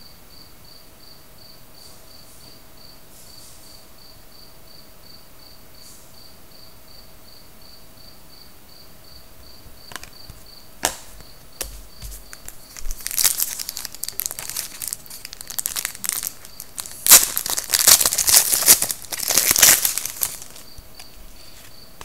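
A trading card pack wrapper being torn open and crinkled by hand, a loud run of crackling from about halfway through, after a few sharp clicks of cards handled on the table.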